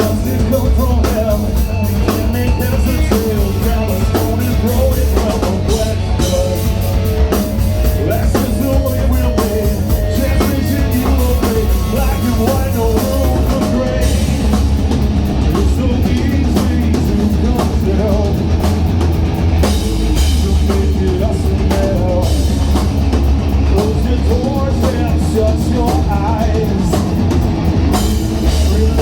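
Live rock band playing loud, with drum kit, heavy bass and guitars, and a voice singing at times. It is heard through a phone microphone in a club.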